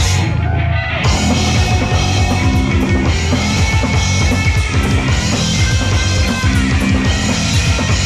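Live punk rock band playing an instrumental stretch, with distorted bass and electric guitar over a drum kit. The full band comes back in about a second in, with fast, driving drumming.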